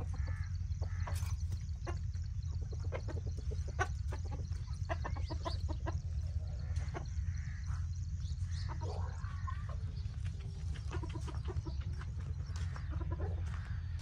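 Chickens clucking, hens and a rooster, with short calls scattered every second or two over a steady low rumble.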